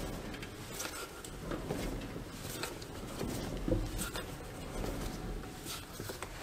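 Garbage truck drive wheel turned by hand off the ground: hands rubbing and pushing on the tyre tread, with scattered light clicks and knocks from the turning wheel and driveline. The wheel is being spun to find a rumble in the driveline, which later turns out to include some clunking.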